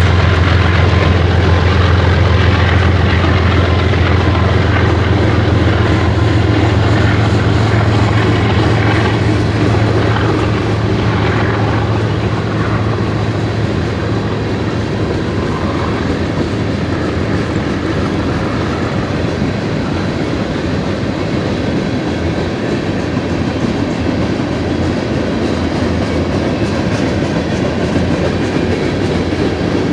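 Loaded covered hopper cars of a freight train rolling past, a steady noise of steel wheels on the rails. A low diesel rumble from the departing GE ES44 locomotives fades out over the first ten seconds or so.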